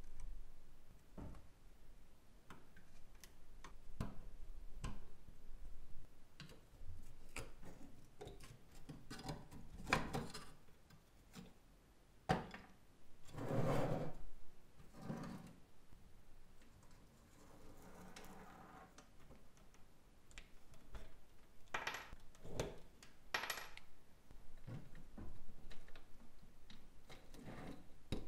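Metal parts of a Tonka toy racing car clicking, clinking and knocking as they are handled and set down on a table, with a longer rubbing slide about halfway through.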